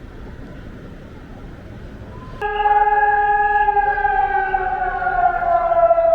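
Air-raid siren of Taiwan's Wan'an air-defence drill sounding the alert. It cuts in abruptly about two and a half seconds in as a loud steady tone with overtones that slowly falls in pitch, over a low hum of street noise before it.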